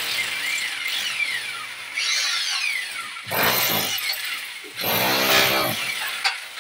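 Rotary hammer with a chisel bit hammering into brick and concrete block, with masonry breaking away as it cuts a channel for wiring. It runs in bursts and is loudest about three and a half seconds in and again about five seconds in.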